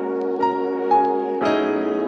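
Background music: sustained piano and keyboard chords, changing about every second and a half, with single notes over them.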